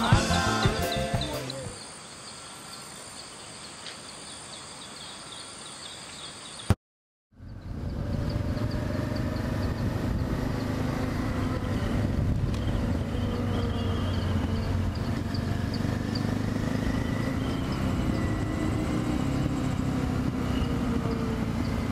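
Music fades out, then quiet countryside ambience with faint insect or bird chirps. After a short dropout, a motorcycle engine runs steadily at cruising speed, with wind and road noise as the bike rides along.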